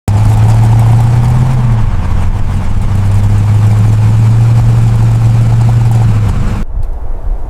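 A car engine running steadily with a loud, even low hum that dips briefly about two seconds in. Near the end the higher part of the sound cuts out, leaving a low rumble.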